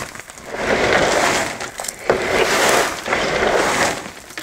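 Homemade wooden substrate bagger being worked by its dispensing arm, dry wood and soy substrate rushing out into a plastic grow bag in three pours of about a second each.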